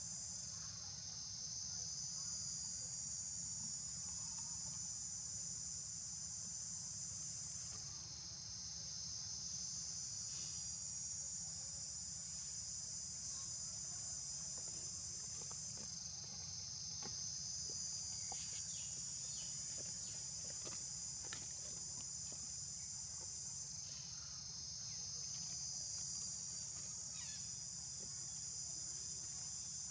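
Steady high-pitched chorus of insects, swelling and shifting in pitch about every eight seconds, over a low steady rumble.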